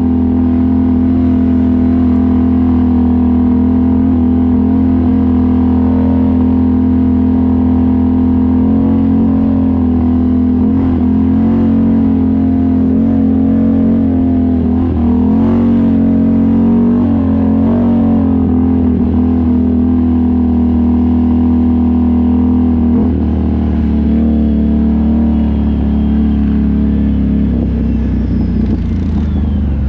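ATV engine running steadily at trail-cruising speed, a constant drone whose pitch wavers slightly in the middle and shifts near the end.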